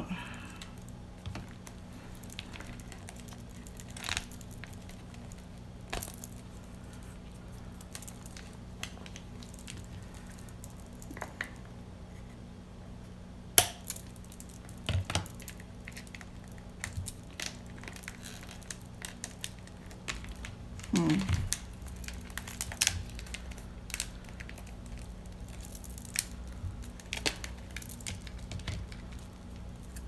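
Scattered crinkles, snips and sharp clicks as a thin, brittle cured-resin bowl is handled and its edges trimmed with scissors; the sharpest click comes a little under halfway through. A faint steady hum runs underneath.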